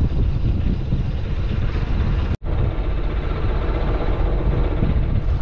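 Fishing boat under way, its engine running steadily with wind noise on the microphone; the sound cuts out for an instant about two and a half seconds in.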